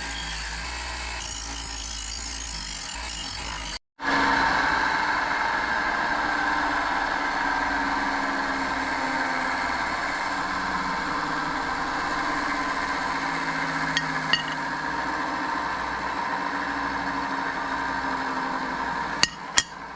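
A small motor running steadily. The sound breaks off abruptly about four seconds in and comes back louder, and a few sharp clicks come near the end.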